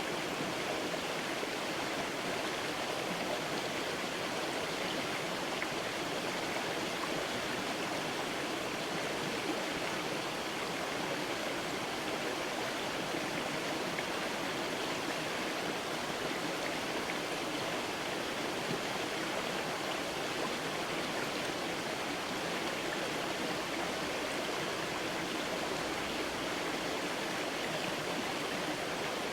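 Creek water flowing, a steady even rush with no change in level.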